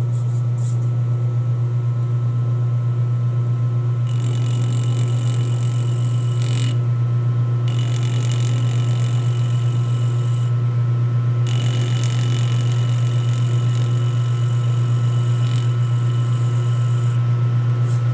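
Metal lathe running with a steady hum while a hand file is held against the spinning aluminium workpiece to knock off its corners: a high scraping hiss in several passes a few seconds long, the first about four seconds in and another near the end.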